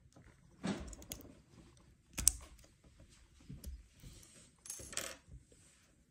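Small clicks, taps and scrapes of a tool prying at the battery inside an opened Oral-B iO electric toothbrush handle. The sharpest click comes about two seconds in.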